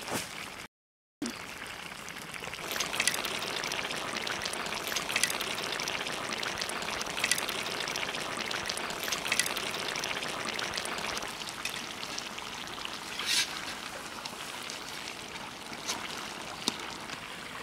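Fish and vegetable curry simmering in an iron kadai over a wood fire: a steady bubbling hiss with scattered sharp pops every second or two.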